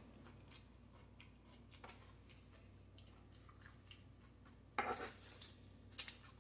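Quiet closed-mouth chewing with faint mouth clicks, then about five seconds in a fork digs into a heap of taco salad and briefly crackles the tortilla chips, followed by one sharp click.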